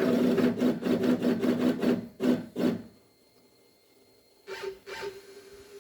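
CNC router's stepper motors jogging the spindle down toward the work, a pulsing motor whine in short steps that stops about three seconds in. A fainter steady whine comes back near the end.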